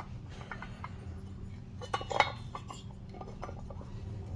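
Light metallic clinks and taps as a ported Husqvarna 372XP cylinder is handled and set onto a bare crankcase half, the loudest cluster about two seconds in. A steady low hum sits underneath.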